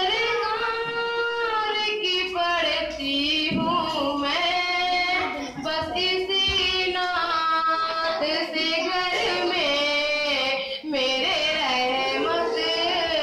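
A young female voice singing an Urdu naat solo into a microphone, without instruments, in long held notes that bend and glide, with short pauses for breath.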